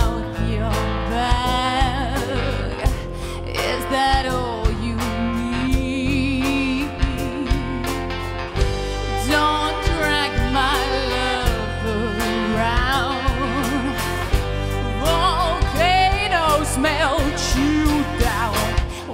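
Live band performance: a woman singing a wavering melody over acoustic guitar, drum kit and violin, with steady drum strokes throughout.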